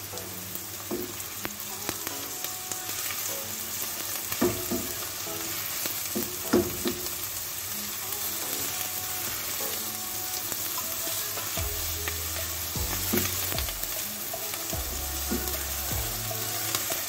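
Chopped onions sizzling in hot oil in a non-stick pot, stirred with a spatula that scrapes and taps the pan now and then. The onions are frying from translucent to just turning light brown.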